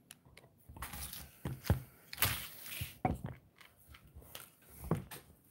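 Handling noise from a phone being turned around while it records: a series of knocks and bumps with bursts of rubbing close to its microphone.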